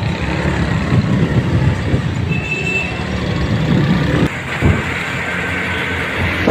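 Wind buffeting the microphone over a steady low engine and road rumble from riding in open air through traffic.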